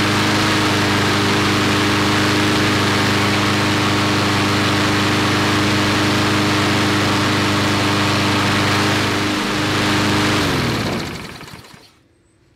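Briggs & Stratton flathead lawnmower engine running steadily at its governed speed, freshly adjusted upward by bending the governor spring linkage. About ten and a half seconds in it shuts off, its pitch falling as it coasts to a stop.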